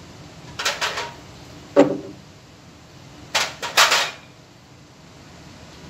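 Knocks and clatters of a PPR pipe welding tool's parts being handled: brass dies, plastic fittings and the aluminium heater plate striking one another and the plastic case. A quick cluster of clicks comes a little after the start, one sharp knock just under two seconds in, and a longer clatter around three and a half seconds in.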